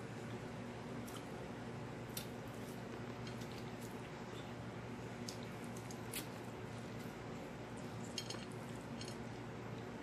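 Person eating close to the microphone: irregular wet mouth clicks and smacks of chewing. A steady low hum runs underneath.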